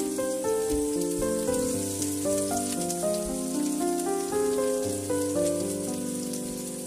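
Chopped onion and ginger frying in hot oil in a wok: a steady sizzling hiss with fine crackles. Under it runs background music, a melody of held notes that change about every half second.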